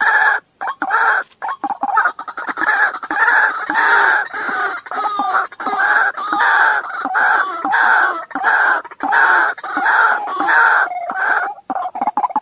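White-breasted waterhen calling: a loud, harsh 'ruak-ruak' croak repeated about twice a second, breaking in the last second into a quick run of short clucking notes. It is a recorded call played as a lure for trapping waterhens.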